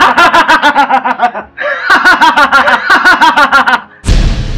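A man's loud, wild, villainous laugh: rapid 'ha-ha-ha' pulses at about five a second, in two long runs with a brief break about a second and a half in. Near the end, a sudden loud boom that slowly dies away.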